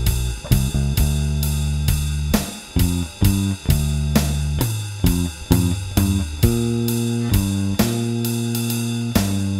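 Mustang electric bass with a Nordstrand angled-pole pickup and GHS nickel strings, run through a Seymour Duncan Studio Bass compressor, playing a blues bass line with several long held notes. It plays over a backing drum track with steady cymbal and hi-hat hits.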